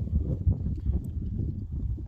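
Wind buffeting the microphone in a gusty low rumble, with a few faint clicks.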